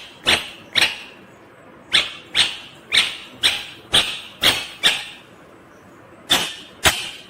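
Ringneck parakeet calling: a series of about a dozen short, sharp calls, mostly about two a second, in three runs separated by short pauses.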